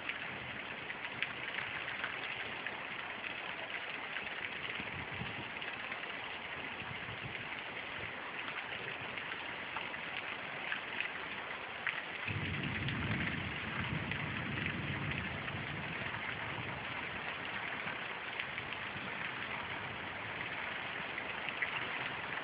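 Heavy storm rain falling: a steady hiss with scattered ticks of drops striking surfaces. About halfway through, a low rumble comes in suddenly and lasts several seconds under the rain.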